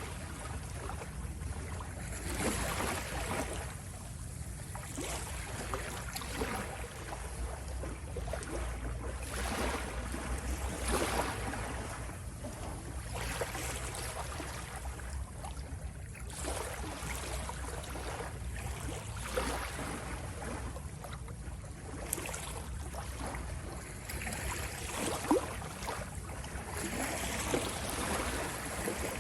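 Ocean waves washing in, swelling and easing every few seconds, over a steady low rumble.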